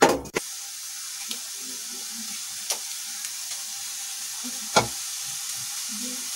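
Thin strands of aloo bhujiya (potato and gram-flour dough) frying in hot oil in a steel kadhai, a steady sizzling hiss as fresh strands are pressed into the oil from a sev maker. A knock comes right at the start, and a couple of sharp clicks come later.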